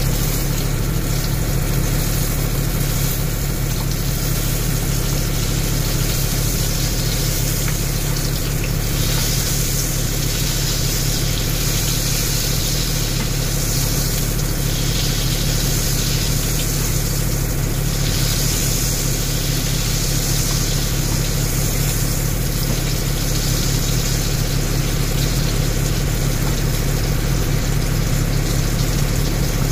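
Beef tenderloin steak sizzling in a pan over low heat, an uneven hiss over a steady low mechanical hum.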